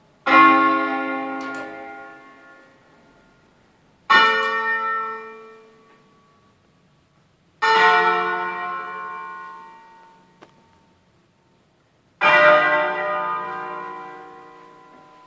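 Church bells from an eight-bell ring in D-flat, cast by L. D'Adda in 1954, played in a slow solemn concert. Four separate strokes about four seconds apart, each ringing out and slowly dying away, heard from inside the church's sacristy.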